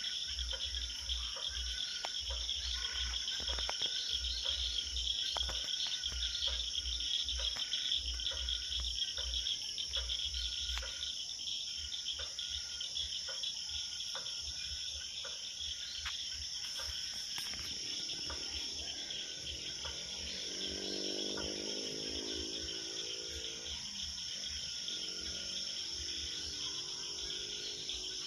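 Steady, high-pitched chorus of crickets or similar insects calling. About eighteen seconds in, a lower pitched call joins underneath.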